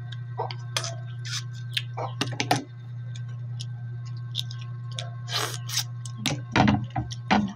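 Close-up eating sounds of cooked green mussels: scattered small clicks from the shells and fingers, and short wet mouth noises of sucking and chewing, louder near the end. A steady low hum runs underneath.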